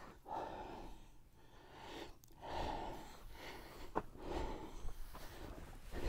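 Slow, heavy breathing: three breaths about two seconds apart, with a sharp click about four seconds in.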